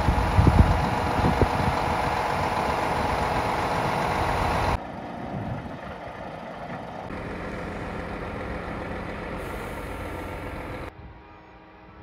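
Scania P400 truck's diesel engine running as the six-axle truck moves slowly, loud and close at first. About five seconds in it cuts abruptly to a quieter, more distant engine sound, and drops again to a faint rumble near the end.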